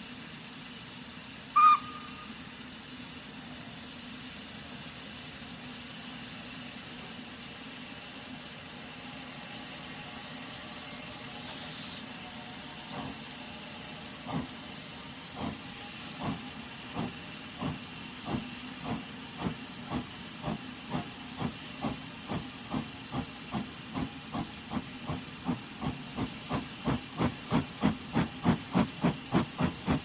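1909 steam locomotive pulling away: a steady hiss of steam, a brief loud whistle toot about two seconds in, then from about halfway the exhaust chuffs begin, slow and spaced at first, quickening to two or three a second and growing louder as the train gets under way.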